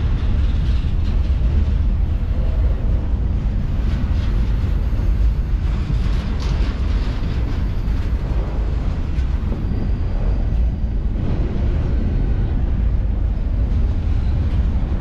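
Freight train rolling past: a steady low rumble of railcars on the rails that does not let up.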